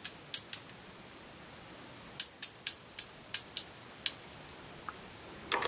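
Wright Tool 3/8-inch drive, 41-tooth ratchet clicking as it is worked slowly by hand: four sharp clicks at the start, a pause, then about seven more spaced clicks.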